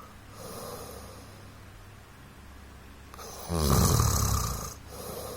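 A man snoring in sleep: a soft breath, then one loud, low, rattling snore lasting about a second and a half, followed by another soft breath.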